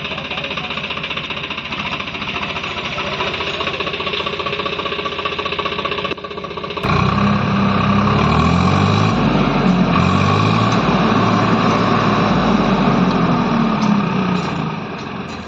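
Swaraj 744 FE tractor's diesel engine running steadily, then about seven seconds in it is revved up under load, louder, its note rising and falling a few times before easing off near the end.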